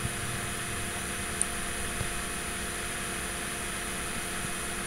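Steady room tone: an even hiss with a faint low hum, and one faint click about a second and a half in.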